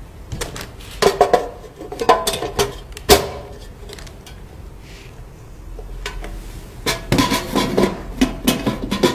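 Metal knocks and clinks with short ringing as the heating pad is fitted back into a sublimation press: a few strikes in the first three seconds, the loudest just after three seconds, then a quieter stretch and a busy run of clanks near the end.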